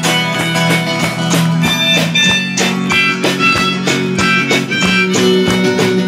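A small live band playing a song: strummed guitar with a steady beat under a held, high melody line and a sustained low note.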